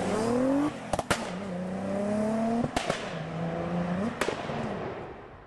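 Car engine accelerating hard through the gears. The pitch climbs, then drops at each upshift with a sharp crack, three times in all, and the sound then fades away.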